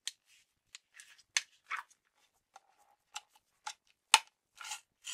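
Putty slime being tipped and pulled out of a clear plastic jar: a string of short sharp clicks and crackles from the plastic and the slime, the loudest about four seconds in.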